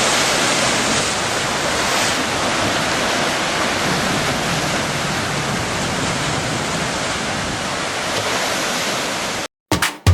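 Steady rushing of sea water and surf, cutting off suddenly near the end.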